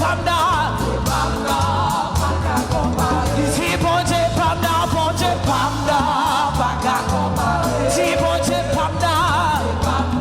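Live gospel worship song: a lead singer with vibrato over a praise band with bass and drums.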